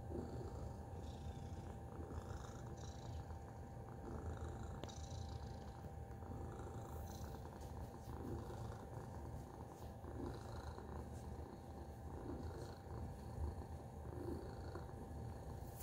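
A tabby house cat purring steadily, a continuous low rumble that goes on while its head is stroked.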